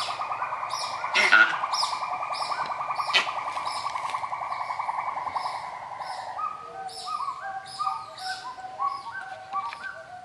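Birds calling: a long rapid trill that stops about six seconds in, then short repeated whistled notes stepping up and down, over steady high chirps. Two sharp clicks fall in the first few seconds.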